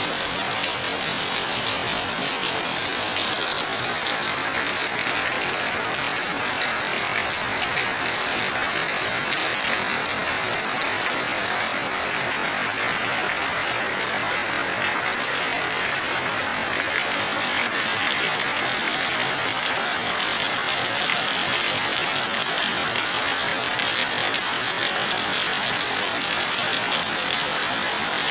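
Heavy tropical rain pouring steadily onto a concrete driveway and garden foliage: a dense, unbroken hiss.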